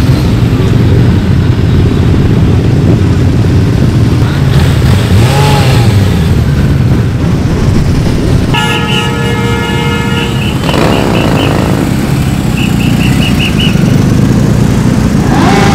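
A column of motorcycles rumbling past at low speed, with engines revving up and down now and then. Just past the middle a horn sounds for about two seconds, followed a little later by a string of short beeps.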